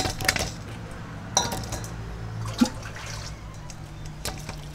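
Blocks of dry yellow noodles set into a stainless steel bowl, with a few light knocks against the metal. Water from a pot starts to pour into the bowl near the end.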